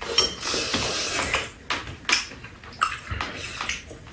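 Metal spoons scraping and clinking against bowls during a meal, with a few short, sharp clinks in the second half.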